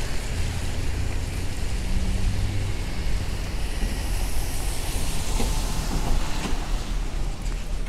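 Street traffic on a rain-soaked avenue: tyres hissing on wet pavement, with the low engine rumble of a passing vehicle during the first few seconds.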